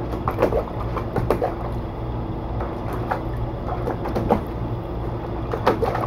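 Dog pawing at the water of a shallow plastic kiddie pool, irregular splashes and sloshes, over the steady hum of a large box fan.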